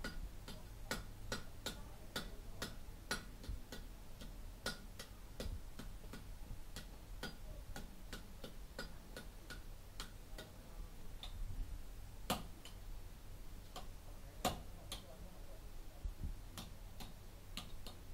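Mechanical power hammer striking a red-hot billhook blank between its dies, about two sharp blows a second, unevenly spaced, over a low steady hum. The sound is muffled by a finger over the microphone.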